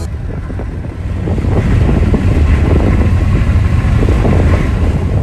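Wind and road noise inside a car moving at speed, with wind buffeting the microphone; it grows louder about a second and a half in.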